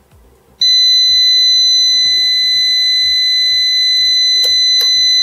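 Prolink PRO701SFC UPS alarm buzzer sounding one continuous high-pitched beep that starts about half a second in. With the red LED lit, the manual reads this as a fault inside the unit. Two short clicks come near the end.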